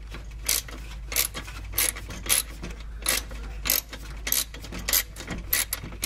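Socket ratchet clicking in short runs on each return stroke, a little under twice a second, as it loosens and runs off an 11 mm nylon locking nut.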